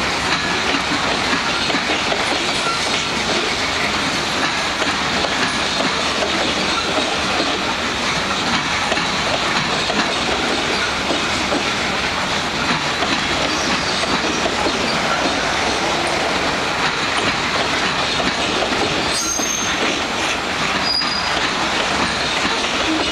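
A freight train of gondola cars rolling steadily past, its wheels clattering over the rail joints. A couple of brief high wheel squeals come near the end.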